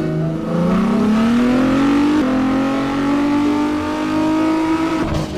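A vehicle engine sound, revving up slowly and steadily in pitch, then breaking off abruptly near the end.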